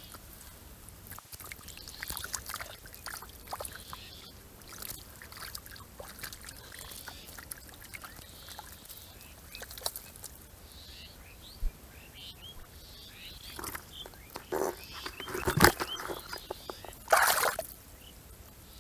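Water splashing and dribbling in short bursts, the louder ones near the end, with small birds chirping.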